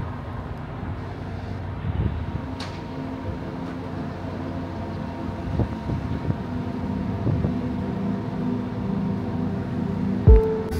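Heavy construction machinery engines running in a steady low drone. A music beat comes in near the end.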